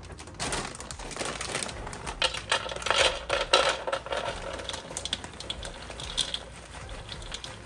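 Whole pecans poured from a plastic bag into the bowl of a kitchen scale, clattering in a rapid patter of small clicks with the bag rustling. The clatter is busiest in the middle and thins out toward the end.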